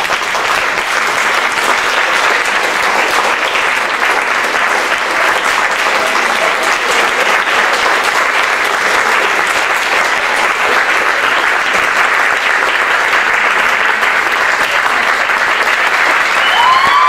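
Audience applauding steadily for a curtain call at the end of a stage play. A voice cheers over the clapping near the end.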